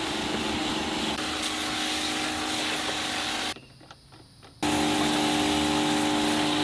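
CoilJet 125's battery-powered 12-volt pump running with the hiss of its water-and-chemical spray from the spray gun. It stops for about a second just past the middle, then starts again a little louder.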